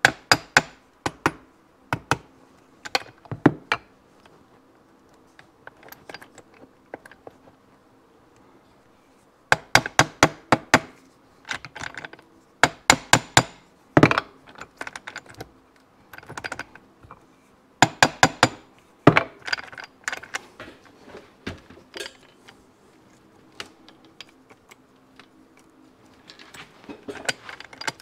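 Light hammer taps in quick bursts of several at a time, with pauses between, driving a transmission shaft of a 1972 Yamaha DT2 250MX down into its bearing in the crankcase until it seats.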